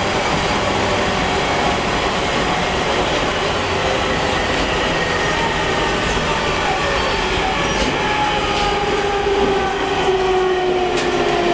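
On-board running sound of a JR East E721-500 series electric train with a Mitsubishi IGBT-VVVF inverter: steady rail and motor noise, with the whine of the inverter and motors falling in pitch in the second half as the train slows. A couple of sharp clicks come from the rails near the end.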